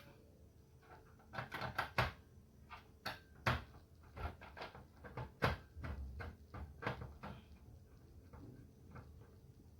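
Irregular plastic clicks and knocks from hands working inside an opened HP LaserJet 1020 laser printer, unplugging connectors and handling its internal parts. The clicks thin out near the end.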